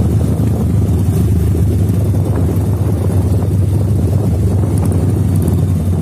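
Motorcycle engines running steadily while riding along a road, with a loud low rumble of wind on the microphone.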